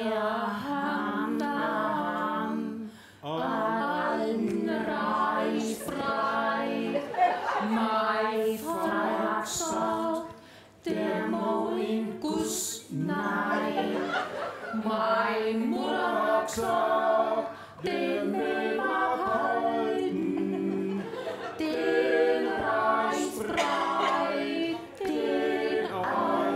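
A small group of voices singing a song together, in phrases a second or two long with short breaks between them.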